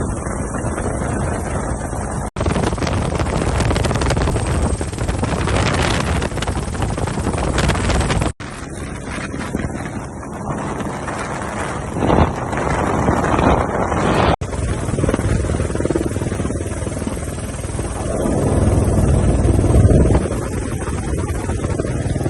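Helicopter rotor and engine noise, steady and loud, with wind buffeting the microphone. It drops out abruptly for an instant three times.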